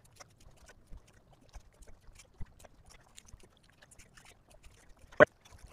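Scattered light clicks and taps over a faint low rumble, with one sharp knock about five seconds in.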